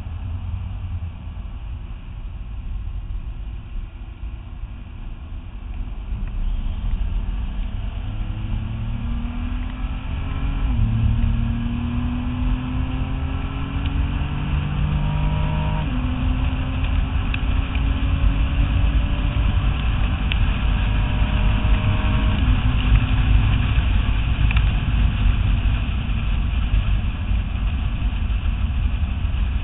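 Nissan GT-R's twin-turbo V6 accelerating hard through the gears: its pitch climbs and drops at three upshifts, about 11, 16 and 22 seconds in. After that the engine holds a steady high speed under a rising rush of wind and road noise.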